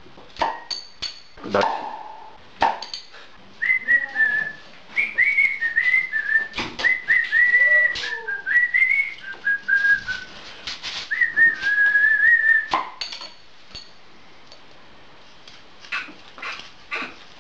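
A person whistling a wavering tune for several seconds, with short knocks and clicks of handling around it.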